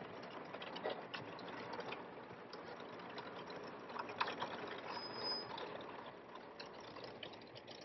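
Construction machinery working a gravel road, heard at a distance as a steady clattering crackle full of small clicks and rattles, with a brief faint high tone about five seconds in.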